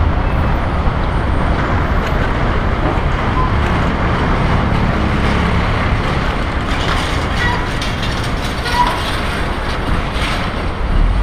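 Steady city street traffic noise, cars and trucks running close by, heard from a moving bicycle, with a few faint short high tones about two-thirds of the way through.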